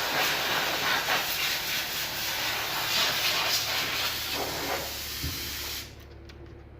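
A steady, loud hiss over a low, even hum; the hiss cuts off abruptly about six seconds in.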